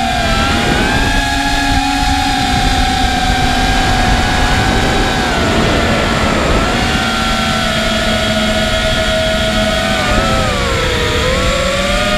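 FPV multirotor drone's electric motors and propellers whining, the pitch shifting with throttle: it drops about ten seconds in and climbs again near the end. Wind rushes over the on-board camera's microphone underneath.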